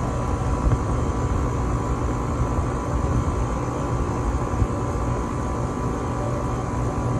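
Refrigeration condensing unit running steadily: the newly replaced compressor humming under steady fan and air noise while refrigerant is charged into the system.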